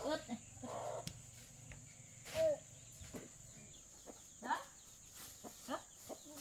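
A few short, scattered animal calls, a second or two apart, over a faint steady high hiss.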